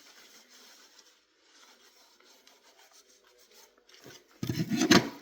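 Faint rustling, then a louder rubbing scrape near the end.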